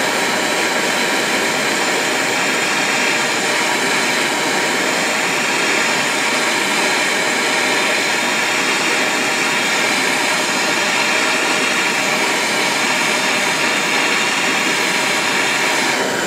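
Gas torch burning steadily at full flame under a wire-mesh screen, a constant rushing hiss, turned up to fuse the counter enamel on the back of a silver piece.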